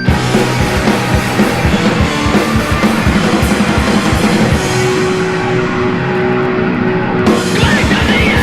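Hardcore punk band recording: drums and distorted guitars come in all at once and run at a fast, driving beat. A shouted vocal enters near the end.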